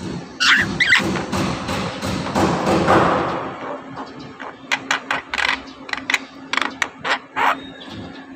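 Javan myna calling: a couple of short whistled notes, then a harsh rasping stretch, then a quick series of short, sharp clicking notes.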